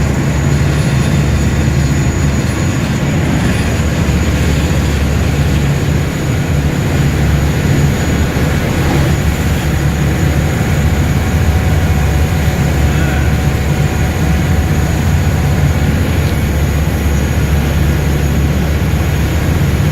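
A boat's engine running steadily: a loud, unchanging low drone with a wash of noise over it.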